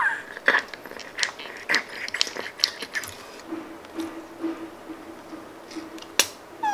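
Sticky slime putty squished and pulled between fingers, giving a quick run of wet clicks and pops over the first few seconds. The pops then thin out as the slime is squeezed through the toy, with one more sharp pop near the end.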